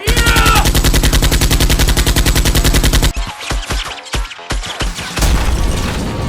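Machine-gun fire sound effect: a rapid, even burst lasting about three seconds, then scattered single shots.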